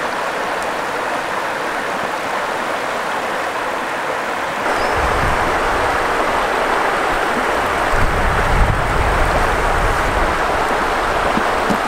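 River water rushing over a shallow rock-ledge riffle, a steady hiss of moving water that becomes louder and fuller about four and a half seconds in.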